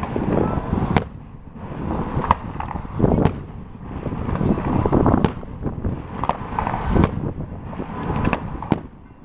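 Fireworks going off in a continuous series of bangs and crackles, a burst about every second.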